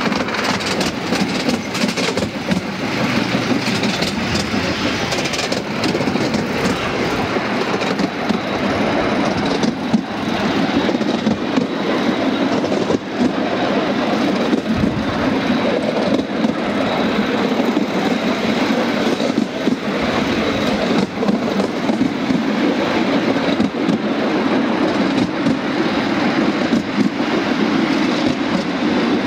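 A 5-inch gauge miniature railway train running on a raised track, heard from on board: a steady rattle of wheels on rail with many quick irregular clicks.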